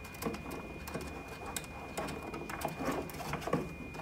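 Irregular light clicks, taps and rustling of plastic as 3D-printer filament is pushed by hand through the feed tube of a Flashforge Finder's plastic spool holder.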